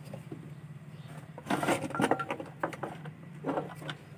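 Handling noise from a TV circuit board being turned over and moved on a wooden workbench: scattered light knocks, clicks and scrapes, the loudest about a second and a half to two seconds in, over a steady low hum.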